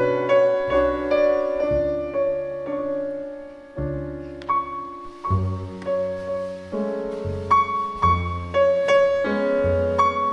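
Jazz trio of Steinway grand piano, double bass and drums playing a slow, gentle melody. The piano carries the tune and chords over low bass notes, with a faint cymbal hiss from about four seconds in.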